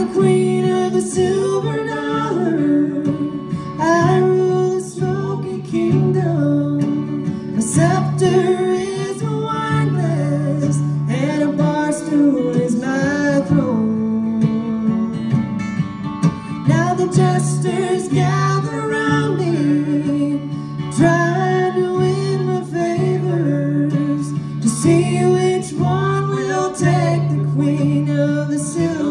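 Live acoustic country music: a steel-string acoustic guitar strummed under a mandolin, with a melody line carried over the top.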